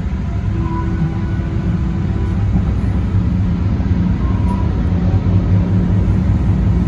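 DART light rail train's steady low rumble with faint whining tones above it, growing slowly louder.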